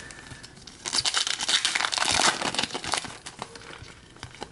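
A foil-wrapped trading card pack being torn open and its wrapper crinkled: a dense crackling burst starting about a second in and lasting about a second and a half, with a few small clicks and rustles around it.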